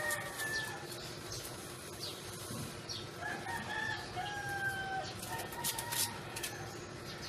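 A rooster crowing, a drawn-out call in two parts a few seconds in, with a shorter call at the start. Scattered sharp clicks and scuffs run alongside.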